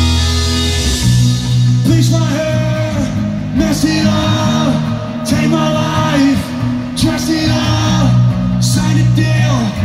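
Live rock band playing loud: a held electric guitar chord, then drums and the full band come in about a second in, with a singer's voice over the top.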